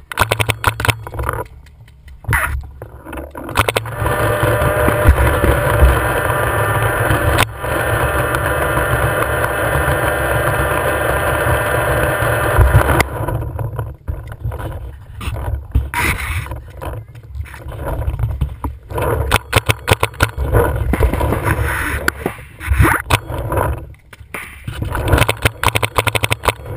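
Paintball markers firing in short sharp pops, some in quick runs, over rustling and handling noise on a marker-mounted camera. A long stretch of steady noise fills the first half and stops suddenly about halfway through.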